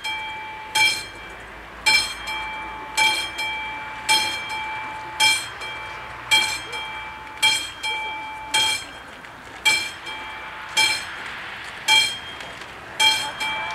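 Level-crossing warning bell of an AŽD 71 crossing, striking about once a second, each strike ringing out and fading before the next. It is the crossing's warning that a train is approaching.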